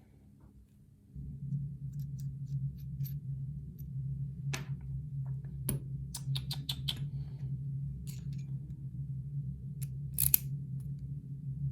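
Small metal clicks of a pin-tumbler challenge lock and picking tools being handled: single clicks, a quick run of about five, and a louder click near the end. Under them is a low steady hum that starts about a second in.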